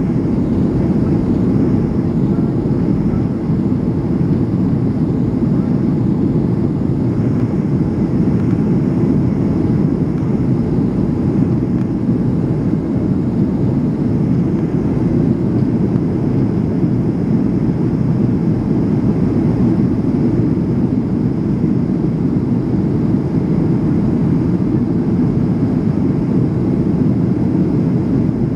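Cabin noise inside a Boeing 757 in its initial climb after takeoff: the jet engines and rushing air make a steady, low, even rumble that does not change.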